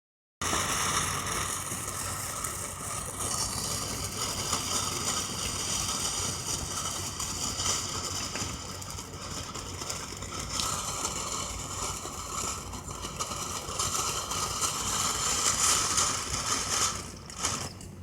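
Firework fountain spraying sparks with a steady hiss and crackle that swells near the end, then dies down: it burns out without a show.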